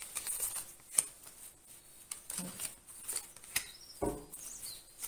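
Oracle cards being handled and laid onto a cloth-covered table: light paper rustling with a few soft taps, the sharpest click about a second in.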